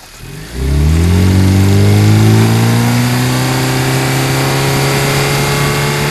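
Toyota Prius pulling away under acceleration: its drivetrain drone comes in about half a second in, rises quickly in pitch, then holds at a nearly steady pitch as the car keeps going.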